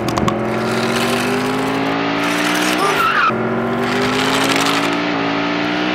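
Race car engine sound effect, revving with its pitch slowly climbing, a short break about three seconds in, then climbing again.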